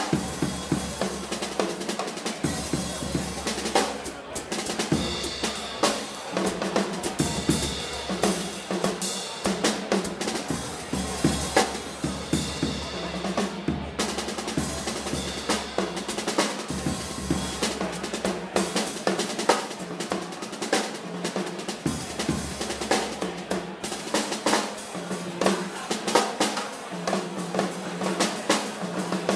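Drum kit played hard and fast by a jazz drummer: dense snare rolls and rimshots over bass drum kicks, with cymbals ringing throughout.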